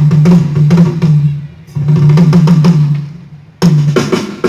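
Drum kit and a low bass line playing short phrases through a PA during a band sound check, three runs of about a second and a half with brief pauses between them.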